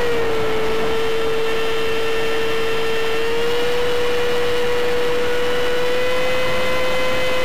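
Electric ducted fan of an Airfield F-15 RC jet whining steadily in flight, heard up close through the onboard FPV camera's microphone. Its pitch has just dropped and holds low, then creeps up slightly about halfway through and again near the end.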